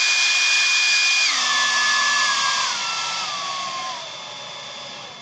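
Small homemade jet engine rig during cool-down: air rushing through it with a high whine that holds steady, then drops in pitch in several steps from about a second in and winds down, fading away near the end.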